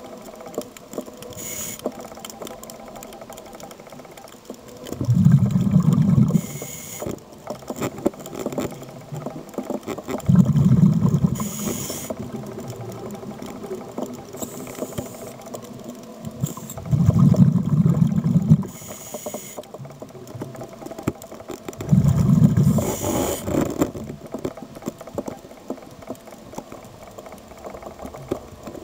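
Scuba diver breathing underwater through a regulator: four low rumbling bursts of exhaled bubbles, about five to six seconds apart and each lasting over a second, with a short hiss of inhalation after each. A faint crackle runs underneath.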